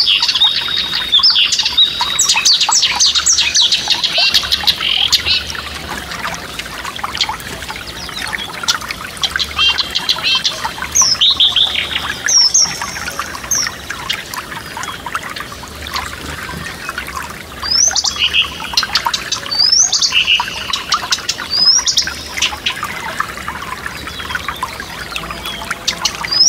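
Forest stream trickling steadily under songbirds singing: a dense run of high chirps in the first five seconds, then short whistled phrases with upward-sliding notes, repeated every few seconds.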